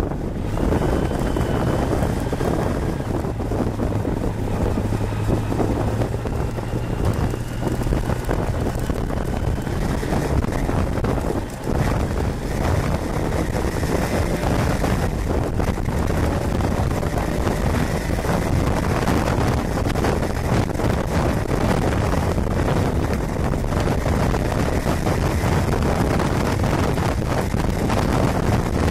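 Kawasaki Balius inline-four motorcycle engine running while riding, heavily mixed with wind buffeting on the microphone. A steady engine tone holds through the first ten seconds or so, and the sound dips briefly about eleven seconds in.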